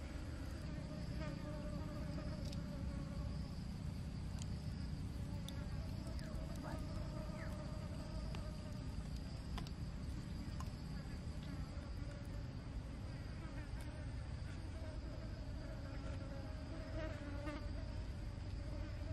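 Steady insect buzzing and droning with a low rumble underneath, and a few faint clicks scattered through it.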